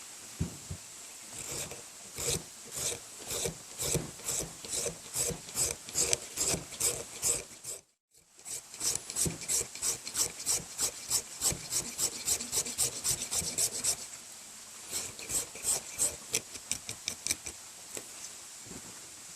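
Back of a Swiss Army knife blade scraping resin-rich fatwood into fine scrapings, with repeated rasping strokes at about three a second. The strokes pause briefly twice and thin out near the end.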